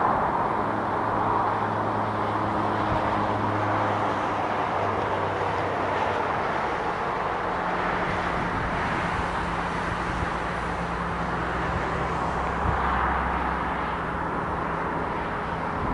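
A car driving past, over a steady low engine hum and constant outdoor background noise.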